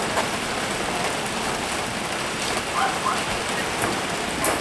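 Steady hiss, with a few short, high squeaks from Shiba Inu puppies about three seconds in and a sharp click near the end.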